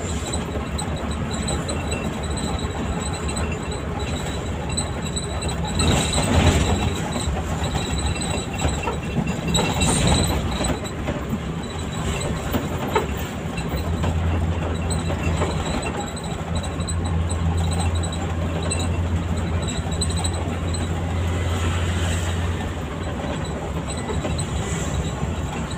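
Coach bus cabin on the move: steady engine drone mixed with road noise and body rattle. A louder rough swell comes about six seconds in and again about ten seconds in, and the low engine hum grows heavier for several seconds past the middle.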